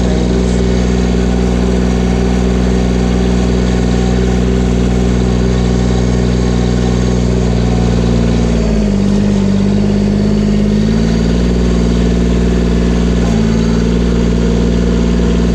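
John Deere 332 garden tractor's Yanmar three-cylinder diesel running steadily while driving along. Just past halfway the engine note changes for about two seconds, then settles back.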